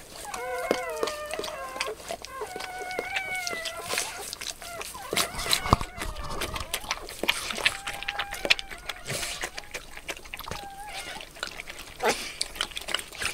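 A newborn puppy squeals in a run of high, wavering cries, then wet licking and smacking as the mother dog cleans it, with a few more short squeaks.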